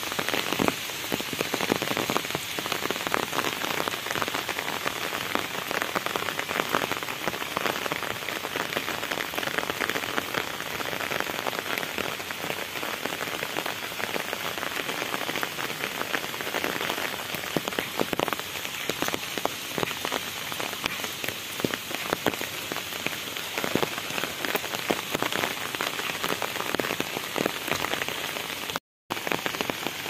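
Steady rain pattering on an open umbrella overhead, a dense stream of close drop-ticks over the wider hiss of rain falling on the wet road and vegetation around. The sound cuts out for a split second near the end.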